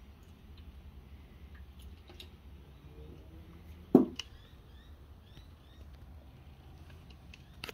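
Quiet handling of a metal paint-reducer tin on a workbench, with one sharp knock about four seconds in as the tin is handled or set down. Faint short high chirps follow the knock.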